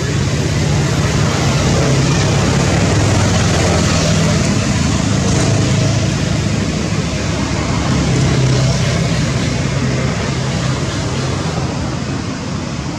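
Steady engine rumble with a broad hiss over it, easing slightly near the end.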